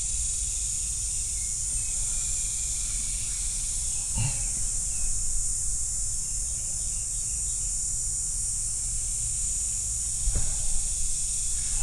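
Steady high-pitched insect chorus of crickets or cicadas, over a low rumble, with a brief soft sound about four seconds in.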